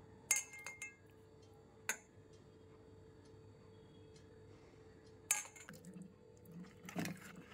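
A stainless steel bowl being handled: a few sharp metallic clinks with short ringing, about a third of a second in, again near two seconds and just after five seconds, then softer handling and knocking sounds near the end.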